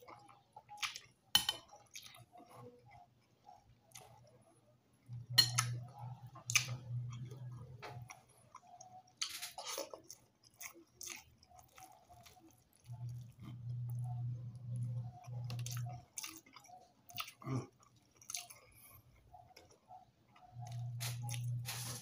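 Close-up chewing and mouth sounds of a person eating fried tilapia and rice by hand, with sharp clicks and taps now and then. A low hum comes and goes in stretches of a few seconds.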